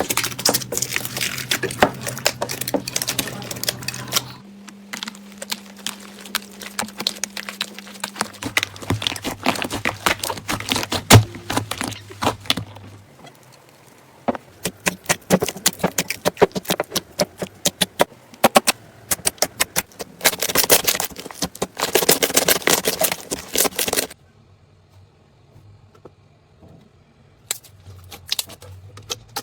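Crunchy slime being squeezed and pressed, giving dense runs of crisp crackles and pops that change abruptly from clip to clip. Near the end it thins to a few scattered clicks.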